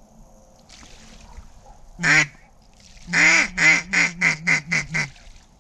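Mallard duck call blown as a hen-mallard quack: one quack, then a cadence of about seven loud quacks, each shorter and quicker than the last, a comeback call to pull a circling duck down to the decoys.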